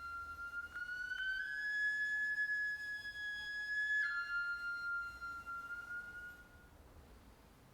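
A solo traditional Japanese wind instrument of Kibigaku plays long held notes. It slides up to a higher note about a second in, holds it, drops back down about four seconds in, and fades away near the end.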